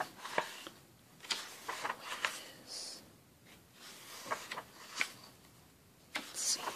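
Pages of a large book being turned one after another: the paper rustles and flaps, with soft taps and brushing as each page settles and a hand smooths it flat.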